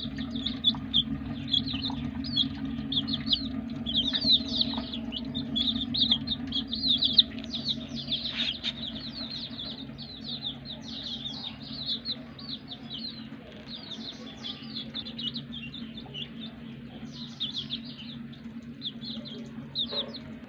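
A brood of newly hatched chicks peeping continuously, many short falling peeps overlapping, over a steady low hum.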